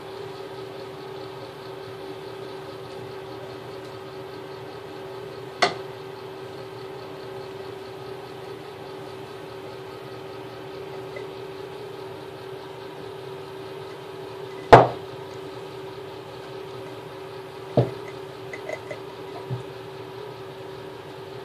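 Glass jars and their lids knocking on a hard counter as a toddler handles them. There is a sharp knock about six seconds in, a much louder one near the middle, then another knock and a few small taps toward the end, over a steady hum.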